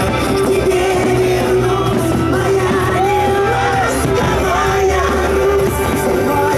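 Loud music with a singer holding long notes, with yells and shouts from a crowd.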